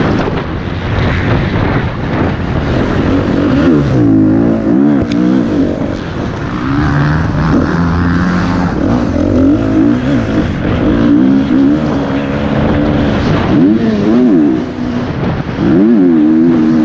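KTM 250 SX-F four-stroke motocross bike at race pace, heard from the rider's helmet: the single-cylinder engine revs up and falls back again and again as the throttle is opened and shut through the gears, over a steady rush of wind on the microphone.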